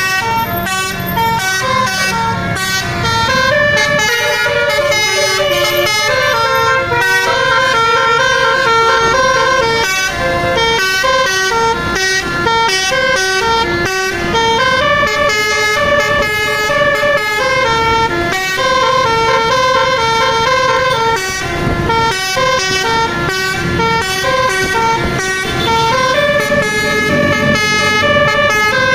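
Bus multi-tone musical air horn (telolet basuri) playing a fast melody. Several notes sound together and step up and down in pitch, continuing throughout.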